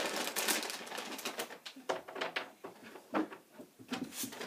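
Dogs whining and grumbling in short, low, cooing moans, the excited vocalising of dogs pestering for attention.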